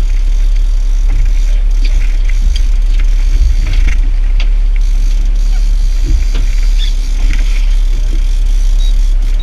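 Steady low rumble of a small fishing boat underway, the outboard motor running with wind on the microphone, with scattered faint knocks and splashes.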